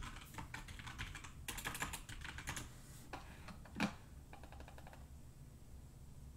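Typing on a computer keyboard: quick runs of keystrokes for the first few seconds, then a few scattered keys, stopping about five seconds in.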